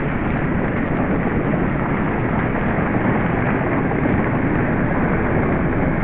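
Steady, loud rushing noise with no distinct events and no birdsong standing out.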